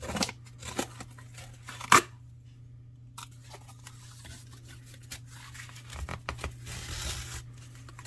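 Knife blade slicing through cardboard in several strokes, scraping and tearing, with one sharp crack about two seconds in. A longer rasping cut comes near the end.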